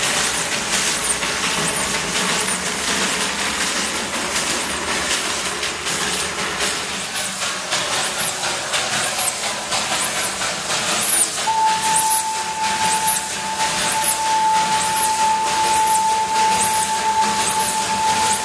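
Darjeeling Himalayan Railway B-class steam locomotive working hard, its exhaust chuffing in an even beat with a hiss of steam. About two thirds of the way in, the steam whistle starts one long, steady blast that lasts to the end.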